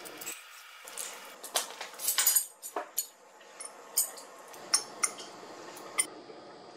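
Metal knife and fork clinking and scraping against a ceramic plate as a baked meat sausage is lifted onto it and cut open, in a string of separate sharp clinks.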